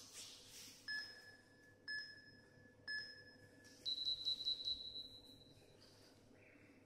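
Interval timer on a tablet beeping the countdown: three short beeps a second apart, then a longer, higher beep about four seconds in that marks the start of the 20-second work interval.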